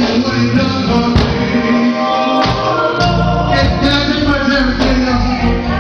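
Gospel music: voices singing together over a band with bass and a steady beat.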